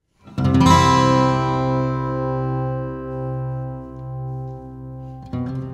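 Background music: a chord struck about half a second in that rings and slowly fades, then new notes starting near the end.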